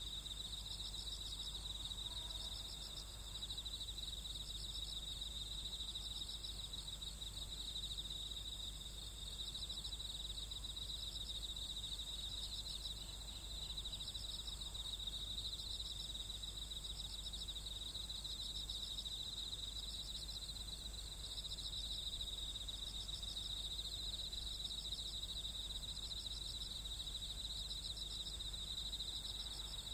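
Night insects, crickets, trilling steadily in a high pitch, with repeated pulsed chirps over it and a low steady rumble underneath.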